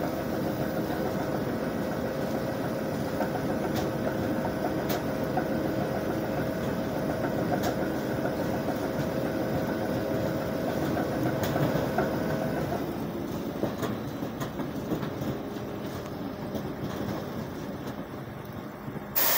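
ROPA Maus 4 sugar beet cleaner-loader running steadily while its conveyor loads beet into a truck: a mechanical drone and rattle. The held tones in the drone drop out about two-thirds of the way through, and the sound ends with one sharp click.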